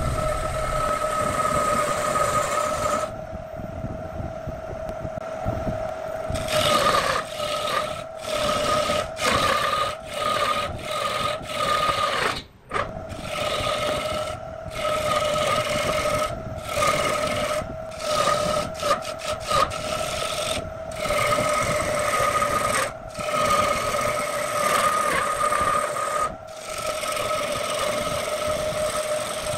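A turning tool cutting a large wooden blank spinning on an electric wood lathe: a rough scraping rasp of steel on wood, over the lathe's steady whine. The cutting noise keeps breaking off for an instant as the tool lifts and goes back in, and stays duller for a few seconds early on.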